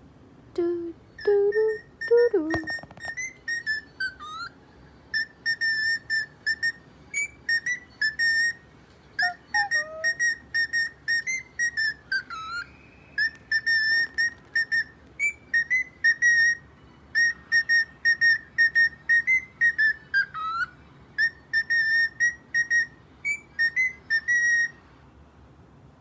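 Pet bird whistling a tune: a string of short whistled notes, mostly on one pitch, broken by dipping slides, with a few lower gliding calls near the start.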